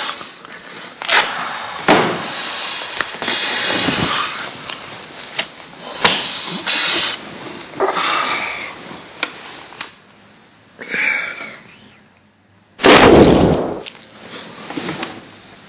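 A person snoring: a run of irregular, noisy snores and breaths of varying length, the loudest about thirteen seconds in.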